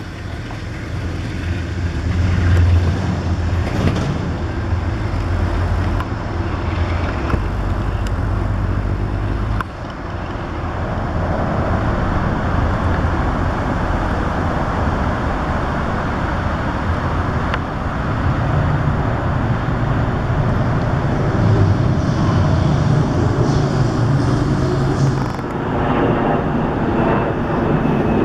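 Diesel engine of a Metro-North GE Genesis P32AC-DM locomotive running with a steady low rumble, its sound changing suddenly about ten seconds in and again near the end.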